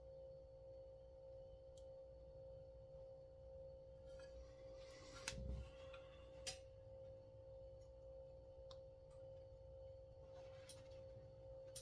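Near silence: a steady electrical-sounding hum, with a short scrape and a couple of light clicks a little past the middle as small parts of a pull starter are handled.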